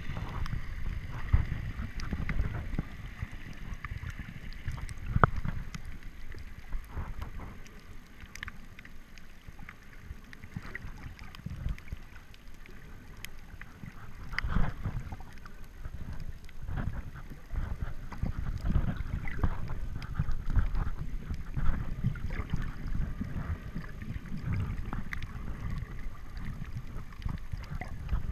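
Water moving around a camera held underwater, heard muffled through the water: a low, uneven rumble with scattered sharp clicks.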